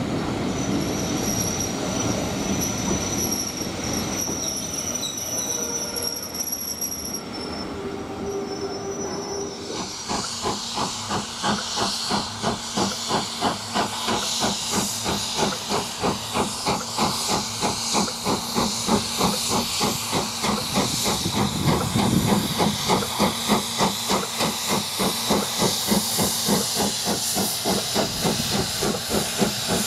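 Steam locomotive: steady steam hiss at first, then about ten seconds in it starts working, with even, rhythmic exhaust beats under the hiss.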